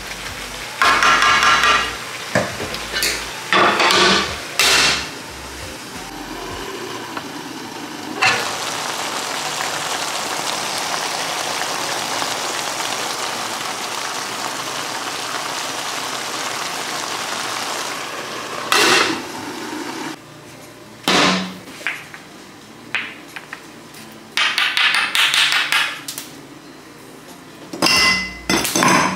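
Wooden spatula scraping and knocking in a frying pan as meat and vegetables are stir-fried, with a steady frying sizzle for about ten seconds in the middle. Near the end, sharp clinks of ice cubes going into a glass.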